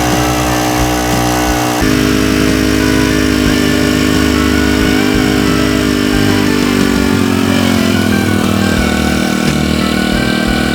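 Small Honda GX25 25cc four-stroke engine of a WX10T water pump running. Its note steps up suddenly about two seconds in, then slides down to a lower, steady speed about seven seconds in.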